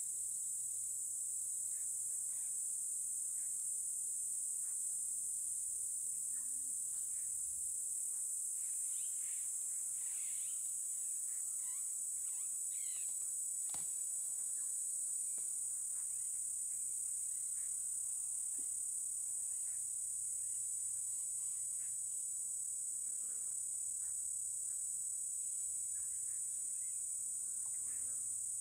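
Steady, high-pitched chorus of insects, with scattered faint bird chirps and a single sharp click about fourteen seconds in.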